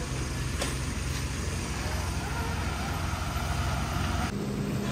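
A heavy vehicle's engine running steadily, with a single click under a second in; the sound changes abruptly a little after four seconds in.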